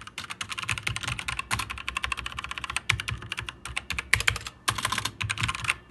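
Fast typing on a Motospeed CK80 mechanical keyboard fitted with Outemu Silver switches: a dense run of key clacks in quick bursts, with short breaks between runs.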